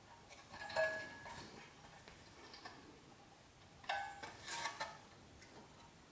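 Cable modem circuit board with metal shield cans, handled and turned over in the hands: a few light knocks and clinks, one brief ring about a second in and another cluster around four seconds in.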